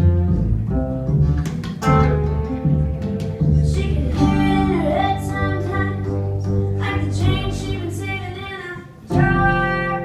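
Live band music: a woman singing over an upright double bass and a guitar.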